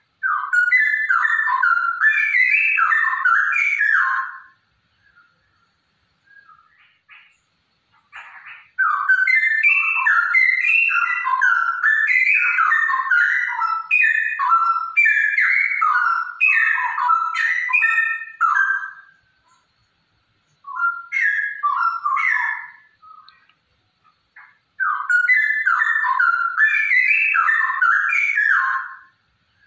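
Female straw-headed bulbul (cucak rowo) singing loud runs of rapid whistled notes, in four bouts: a short one at the start, a long one of about ten seconds from about eight seconds in, a brief one, and another near the end, with pauses between.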